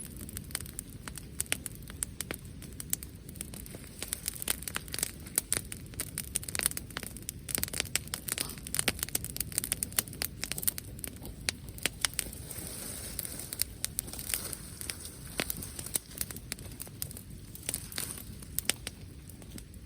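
Bonfire crackling, with many irregular sharp pops and snaps and a soft hiss for a couple of seconds past the middle.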